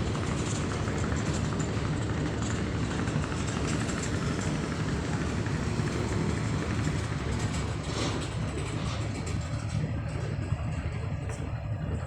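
Car ferry's engines running with a steady low rumble under a rushing hiss; the hiss thins out near the end.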